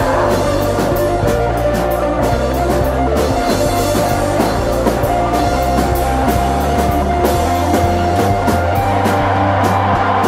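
Instrumental ambient alternative rock: layered sustained guitar tones over a held bass line, with a drum kit keeping a steady beat.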